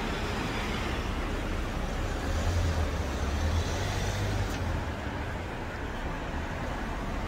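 A motor vehicle passing close by on the street over steady traffic noise, its low engine and tyre rumble swelling about two seconds in and fading after about four and a half seconds.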